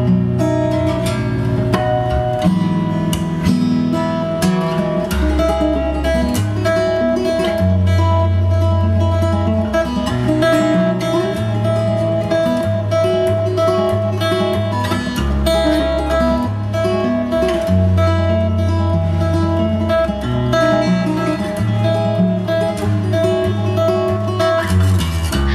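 Acoustic guitar music with strummed chords over a bass line, played back through B&W 686 S2 bookshelf speakers driven by a Muzishare X7 KT88 push-pull tube amplifier.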